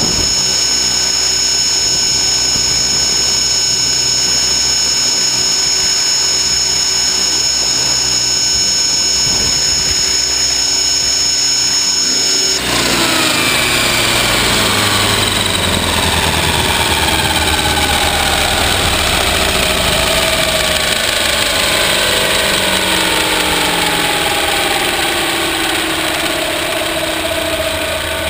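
Align T-Rex 600 ESP RC helicopter heard from a camera on its own frame: the motor and rotor whine steadily while it flies low, then about 12 seconds in the high whine cuts off abruptly and the remaining tones fall steadily as the rotor spins down after landing.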